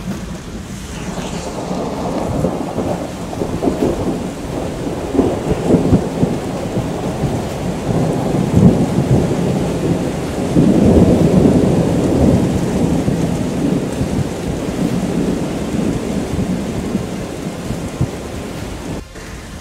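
Passing thunderstorm: a long, low rumble that swells and eases, loudest about ten to thirteen seconds in.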